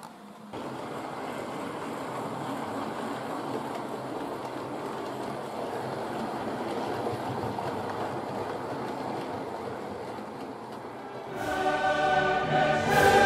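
Model railway train running along the track, a steady whirring rattle from the motor and wheels; about eleven seconds in, orchestral music comes in and becomes the loudest sound.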